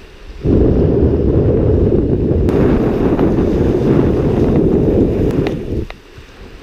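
Wind of about 18 to 20 mph buffeting the camera's microphone: a loud, low rumble that starts abruptly about half a second in and drops away shortly before the end.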